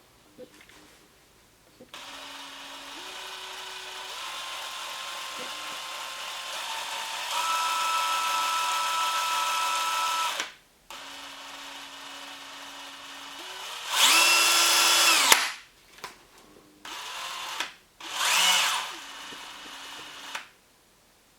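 DeWalt DCD790 18V brushless cordless drill running free with no load in four trigger pulls at varying speeds. A low whine starts about two seconds in and steps up in pitch, then stops near the middle. A short full-speed burst is the loudest part, followed by two shorter runs. The drill's chuck and holding shaft wobble with almost 1 mm of run-out.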